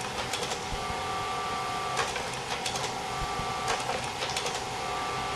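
Projector running with a steady motor and fan hum, clicking mechanically several times as it is advanced through blank frames toward the next picture.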